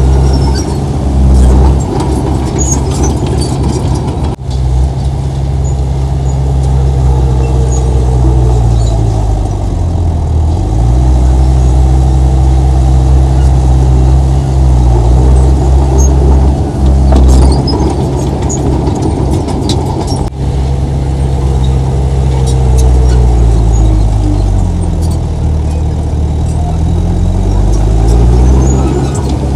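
Heavy diesel engine of earthmoving machinery running loudly under load, its pitch dipping and picking up again about ten seconds in and rising once more near the end.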